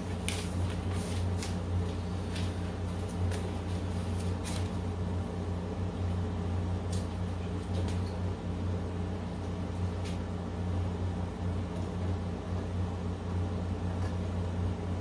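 Steady low mechanical hum, with scattered light clicks and rustles of small electrical parts and paper being handled, most of them in the first few seconds.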